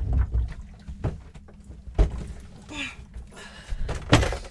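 Heavy lead-acid boat battery being hauled up and set down on a wooden table: a series of knocks and thumps with some scraping, the loudest thump about four seconds in.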